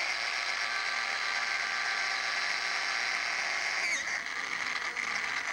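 Electric hand drill running steadily under load, its bit cutting a hole through metal bar stock clamped in a vise. The motor's pitch dips briefly about four seconds in, then picks up again.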